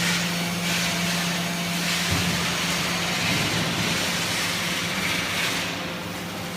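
Rice husk baling machine running: a steady motor hum under a broad hiss, the hiss easing near the end.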